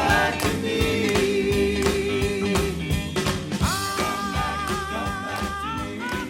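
Doo-wop song by a vocal group with backing band: long held sung notes over a steady beat, slowly getting quieter.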